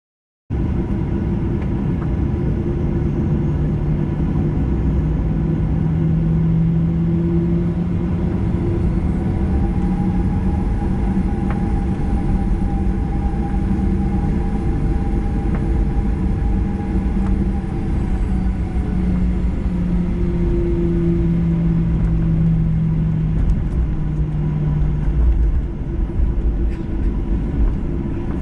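Jet airliner's engines at taxi power, heard from inside the cabin as the aircraft taxis onto the runway: a steady rumble with a low hum and a higher whine that stay nearly level. The sound starts abruptly about half a second in.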